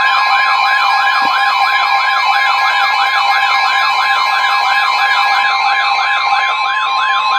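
Weather alert tones: a siren-like alarm warbling up and down about three times a second over a steady, high single tone, the NOAA Weather Radio 1050 Hz warning alarm. Together they signal that a new warning, here a severe thunderstorm warning, is about to be read.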